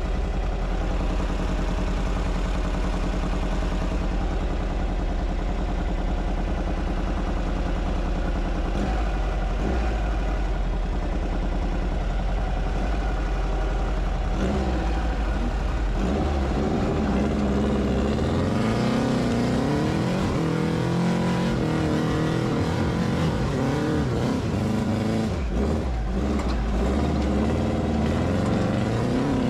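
Rail buggy engine running at a steady pitch, then revving up and down repeatedly from about halfway through.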